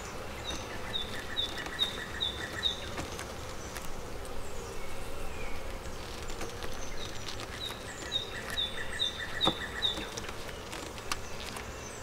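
Honeybees buzzing steadily around an open hive. Two runs of short, evenly repeated high chirps and a few light knocks sound over the buzz.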